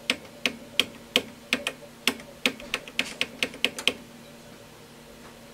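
Relays inside an Advantest R6581T 8.5-digit bench multimeter chattering: about twenty sharp clicks over four seconds, coming faster towards the end, then stopping. The meter is hunting between ranges while falsely showing overload, a fault the owner puts down to a flat internal battery.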